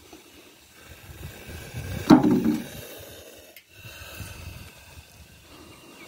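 Black cobra with its hood spread giving one short, loud hiss about two seconds in. Otherwise only faint low rustling.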